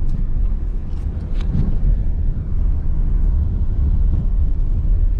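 Steady low rumble of a car driving on a rough unpaved road, heard from inside the cabin, with a few faint ticks about a second in.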